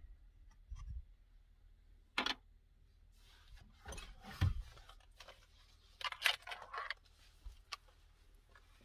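Hand work on a pickup's steering column during a clock spring replacement: a few sharp clicks and small knocks of parts being handled, with bursts of rustling, at irregular intervals.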